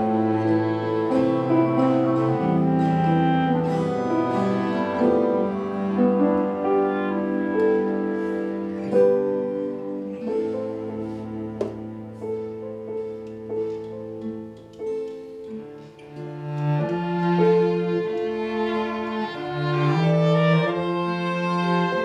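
Instrumental passage of a live folk ensemble: bowed violin and cello holding long notes over acoustic guitar and keyboard. The music drops quieter about fifteen seconds in, then swells again.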